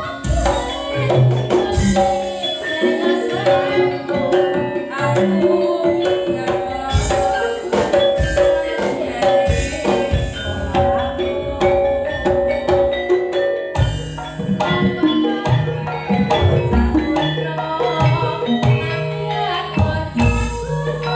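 Campursari music played live: gamelan-style metallophones ring out a dense run of struck notes over hand-drum strokes, with no singing.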